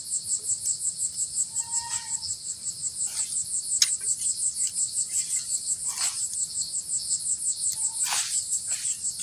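Insects chirring in a steady, evenly pulsing high chorus, about four to five pulses a second. A few faint knocks and scrapes come through, one sharper knock about four seconds in.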